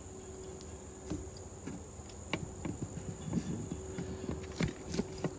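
Insects trilling steadily at a high pitch, with scattered rustling steps on dry leaf litter from about a second in.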